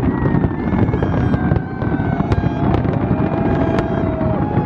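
Fireworks going off in quick succession: a continuous low rumble of bursts, broken by several sharp cracks.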